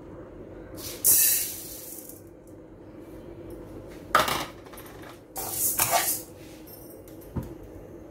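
Small dry lentils poured from a plastic bowl into an aluminium kadai, a loud hissing rattle of grains hitting the metal about a second in. Two more rattling bursts follow as the lentils shift in the pan, then a single short knock near the end.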